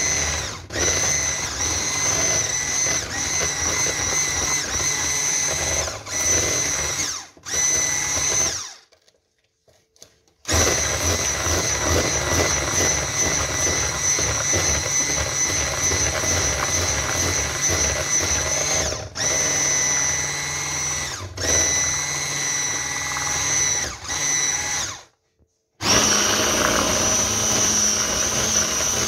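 Electric hand mixer beating a chocolate cake batter, its motor running with a steady high whine. It stops for about two seconds around nine seconds in and briefly again near the end, dips for a moment a few other times, and after the last restart runs with a slightly different tone.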